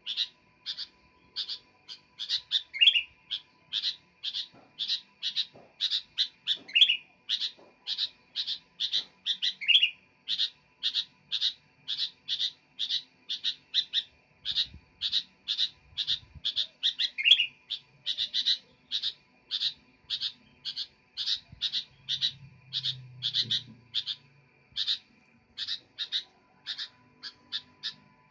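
Sooty-headed bulbul (kutilang) calling without a break: a fast, steady series of short sharp notes, about two a second, with an occasional rising slurred note.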